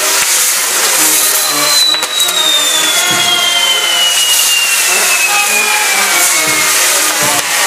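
Castillo fireworks tower burning: a loud, steady hiss of spraying sparks. A long whistle starts about a second and a half in and falls slowly in pitch until near the end.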